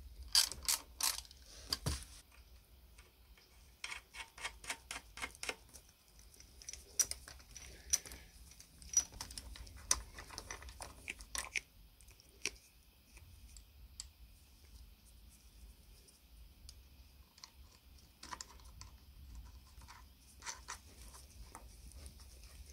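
Light metallic clicks and taps of steel parts being handled: a clay-pigeon trap's coil spring, washer and nut being fitted on a threaded rod. Quick runs of clicks come near the start and again about four seconds in, then scattered single ticks that thin out.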